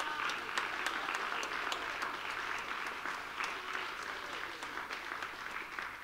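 Congregation applauding, a dense patter of claps that thins out and fades over the last couple of seconds.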